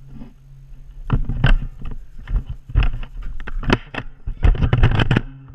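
Irregular thumps, knocks and rustling from a person moving quickly on foot while wearing the camera: footsteps, with the camera and clothing knocking and rubbing, busiest near the end.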